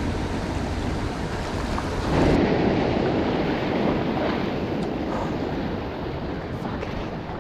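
Waves washing against a rock jetty, with wind on the microphone; the surf noise swells about two seconds in.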